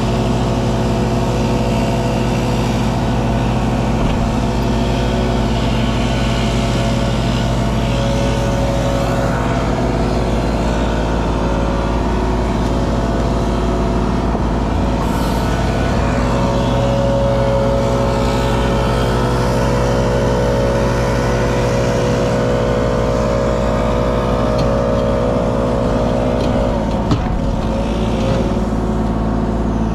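Kubota KX033 mini excavator's diesel engine running steadily under hydraulic load, with a whine that shifts in pitch as the hydraulics work, and a single knock near the end.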